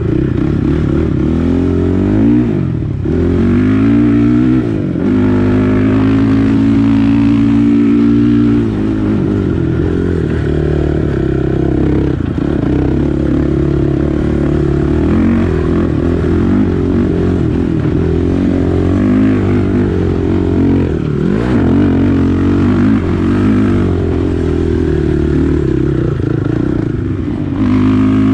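Honda TRX450R quad's single-cylinder four-stroke engine running hard under throttle, revving up and easing off again and again as it rides.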